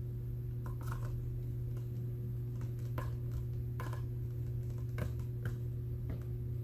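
Small screwdriver turning a screw into a laptop's plastic bottom case: scattered light clicks and ticks of tool, screw and plastic over a steady low hum.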